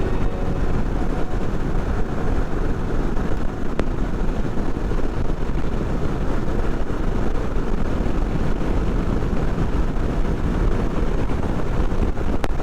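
Steady rush of wind and road noise from a motorcycle on the move at road speed.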